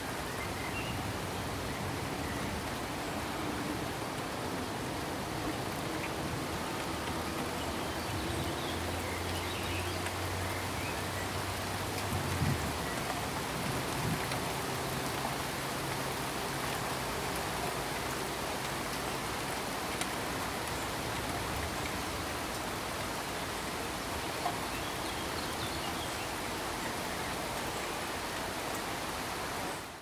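Steady rain-like hiss of pink noise from an immersive audio-visual installation's soundtrack. Low humming tones sit under it in the middle, with a soft thump about twelve seconds in.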